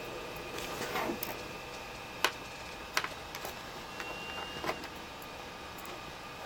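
Small screwdriver backing out the laptop screws that hold in the CD drive: faint scraping with a few sharp clicks of metal on metal.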